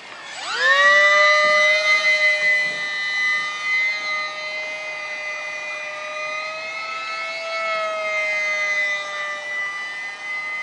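Electric motor and propeller of a ParkZone Icon-5 micro RC flying boat throttling up sharply about half a second in, then holding a loud, steady high-pitched whine at high power with slight wavering in pitch.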